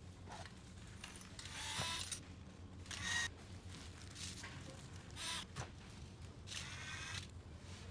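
Small plastic and metal RC-car axle parts and hand tools handled over a paper instruction sheet: a series of short rustling, clicking bursts about a second apart, the loudest with a brief metallic ring.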